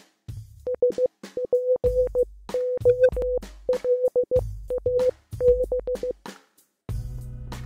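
Electronic intro jingle: a high beeping tone in short rapid groups over drum hits and deep bass notes. After a brief gap about six seconds in, it gives way to a held bass chord.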